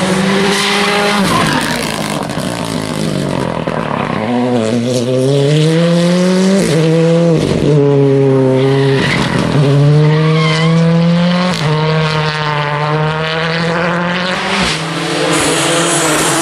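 Rally car engines revving hard through the gears, the pitch climbing and then dropping sharply at each shift, several times over.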